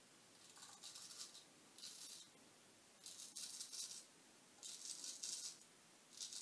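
Straight razor shaving lathered stubble on the cheek: faint scratchy strokes, about one a second, each lasting half a second or so.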